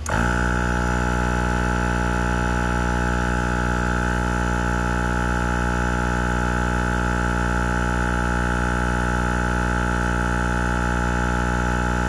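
70mai 12-volt portable car tyre compressor switching on and running steadily, pumping up a tyre. Its motor and piston give an even, constant hum.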